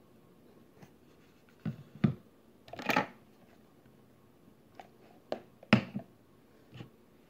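Objects being handled close to the microphone: a handful of short knocks and clatters, with a brief rustle about three seconds in.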